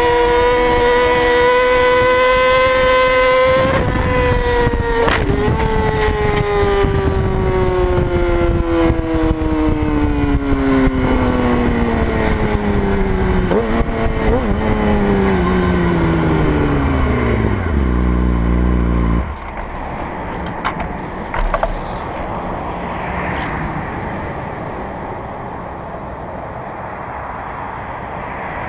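A high-revving motorcycle engine holds a steady, high-pitched note. About four seconds in, a rushing noise and a sharp knock join it, and the engine note then falls slowly and steadily over about fifteen seconds before cutting off abruptly. A quieter, even rushing noise with a couple of faint knocks follows.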